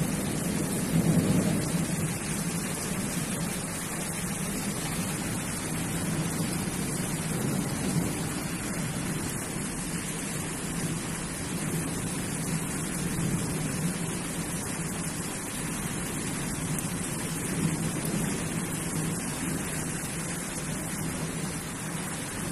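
Steady rush of a heavy rainstorm, rain and wind together, with wind buffeting the microphone. It gusts a little louder about a second in.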